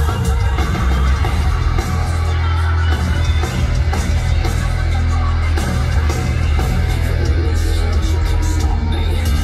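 Heavy metal band playing live, loud and steady, with guitars over heavy bass and drums, heard from the audience.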